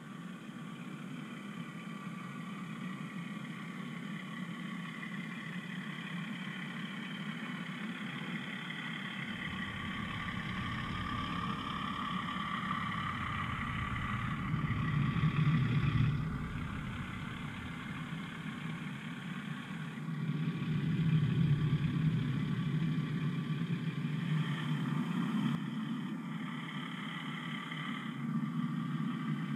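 OO gauge model diesel locomotive D5100, a Class 24, running past hauling a train of tank wagons: a steady motor and engine drone over the rumble of wheels on the track. It grows louder as the wagons pass close by, about halfway through and again a few seconds later.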